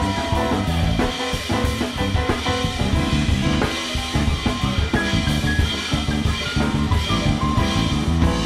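Live band playing: a drum kit keeping a busy beat with many sharp hits, under a stepping electric bass line and keyboards with a few held higher notes.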